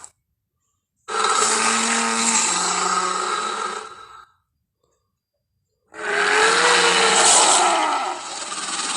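Two Mosasaurus roar sound effects from the Jurassic World films, each about three seconds long and separated by a second or two of silence; the first starts about a second in, the second about six seconds in and is still sounding at the end.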